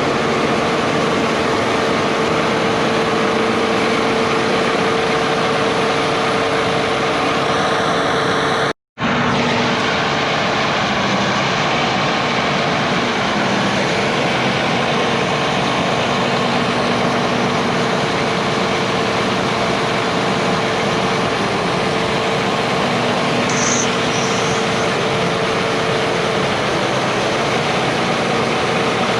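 Large harvest machinery running steadily: a loud, dense drone with a steady whine through it. The sound drops out for an instant about nine seconds in, then carries on the same.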